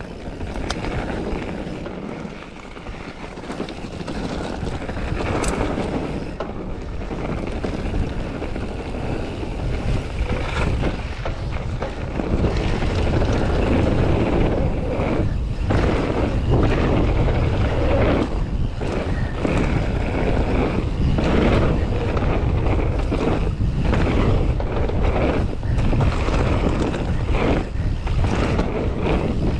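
Wind buffeting the microphone of a camera on a moving mountain bike: a steady rush with a low rumble that swells and dips, growing louder about twelve seconds in.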